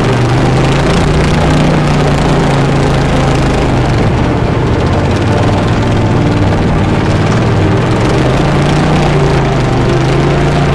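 Racing lawn mower engine running under way, its pitch dropping off in the middle and climbing again near the end as the speed changes.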